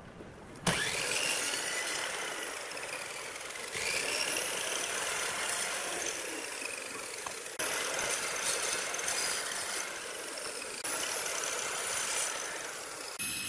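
Miter saw starting up about half a second in, then cutting repeated shallow passes through pine to rough out a notch. Its high whine dips and rises again as the blade bites into the wood and clears it, and the sound breaks off and resumes abruptly several times.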